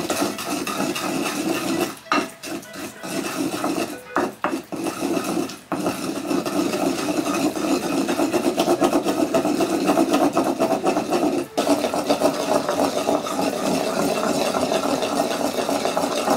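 Wooden pestle grinding tofu around the ridged inside of a Japanese suribachi mortar: continuous rhythmic rubbing and scraping that pauses briefly a few times.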